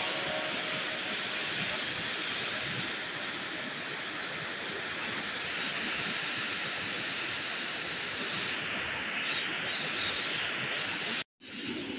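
Rain-flooded river rushing through a narrow rock gorge: a steady hiss of fast-moving water that drops out for a moment near the end.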